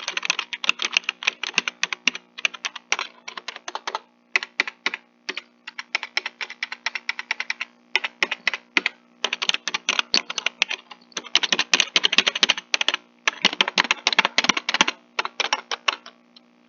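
Gaming keyboard keys being tapped rapidly in bursts of dense clicking with short pauses between, stopping about a second before the end.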